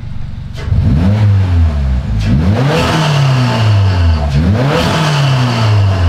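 Subaru WRX's FA24 turbocharged flat-four, fitted with a Perrin turbo inlet hose, blipped three times from idle. The engine pitch rises and then falls back toward idle each time, and the intake and turbo are loud at the top of each rev.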